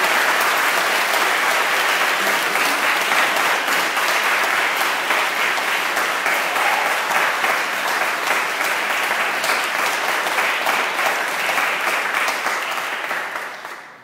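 Church congregation applauding: dense, steady clapping that dies away near the end.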